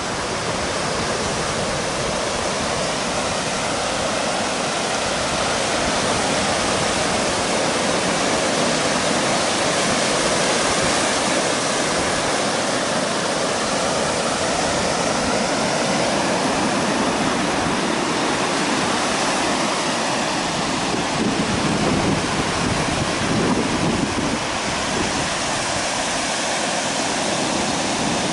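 Small surf breaking and washing up a sandy beach: a steady hiss of water that swells a little about two-thirds of the way through.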